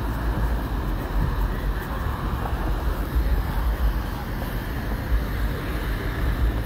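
Steady outdoor street noise: a low rumble of traffic with no single event standing out.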